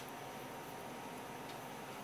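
Low steady hiss with one faint tick about a second and a half in: a sashimi knife touching the wooden cutting board while thin-slicing raw amberjack.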